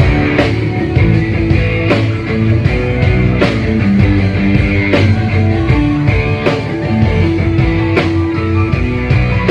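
Live rock band playing: guitar over bass and drum kit, with sharp drum hits cutting through.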